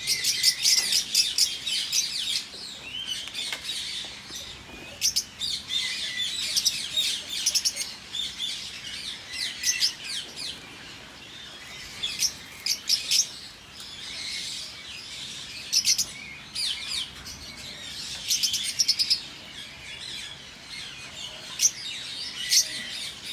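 A flock of lovebirds chirping: many rapid, high-pitched chirps and calls overlapping, coming in clusters with short lulls between them.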